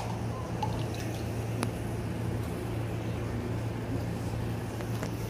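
Water scooped from a metal basin and poured and splashed over a newborn in a baby bath, with a few small knocks, over a steady low hum.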